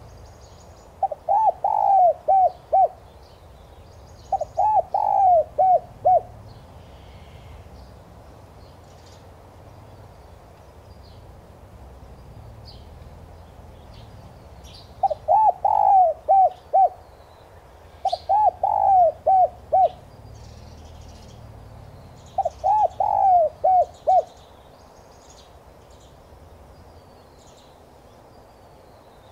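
Spotted dove (chim cu gáy) cooing: five song phrases, each a quick run of about five coos. Two phrases come near the start and three more come later, with a long pause between. Faint high chirps of small birds run underneath.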